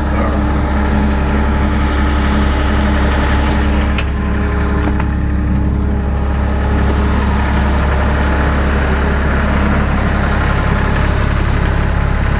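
2002 John Deere 260 skid steer's diesel engine running steadily at idle, with a few sharp clicks about four and five seconds in.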